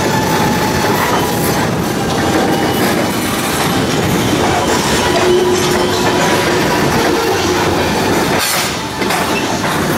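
Freight train covered hopper cars rolling past close by: steel wheels rumbling and clicking over the rail joints, with a faint steady wheel squeal that comes and goes.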